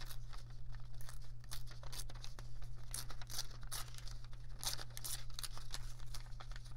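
Thin paper being torn by hand into small strips, a run of short, irregular rips.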